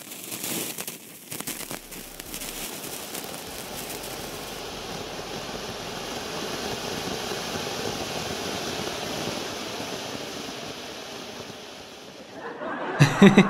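A small anar (Indian fountain firework) spraying sparks, crackling for the first few seconds and then giving a steady hiss that dies away near the end. The fountain fizzles out after burning only briefly. A short chuckle comes right at the end.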